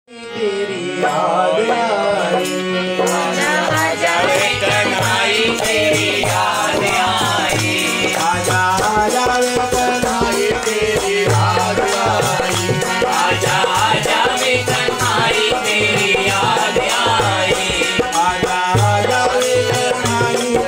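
A man singing a devotional bhajan to his own harmonium, whose held reed notes sound from the start under the voice. A steady rattling percussion beat joins about three seconds in.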